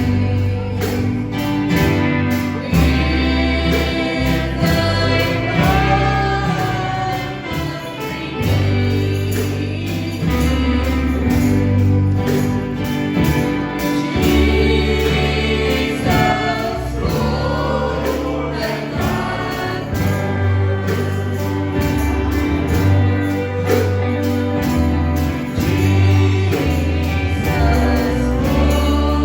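Choir singing gospel music with a band, steady bass and drums under the voices.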